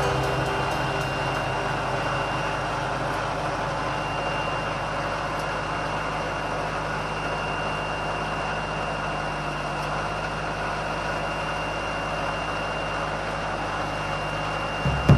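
Woodland Mills HM126 portable bandsaw mill running steadily: an even engine drone with a faint high whine above it.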